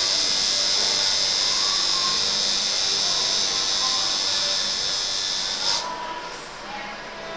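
Electric tattoo machine buzzing steadily as the needle works ink into the skin, cutting off a little under six seconds in.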